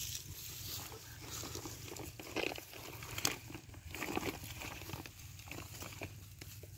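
Rustling and crunching of a nylon cast net and dry grass as hands pull caught fish from the mesh, with scattered small clicks and taps over a low steady hum.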